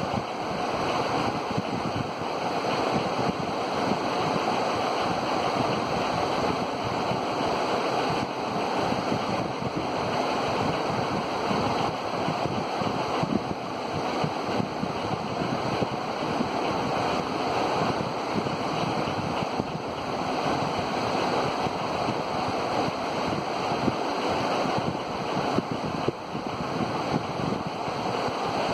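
Spinning blades of a 3D hologram LED advertising fan, a steady whoosh of rushing air that holds the same pitch and level throughout.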